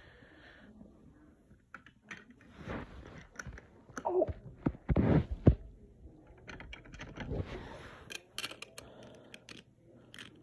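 Close handling noise: cloth rubbing against the phone's microphone, with scattered small clicks and knocks as plastic LEGO pieces are moved about. A few louder rustling swishes come around the middle.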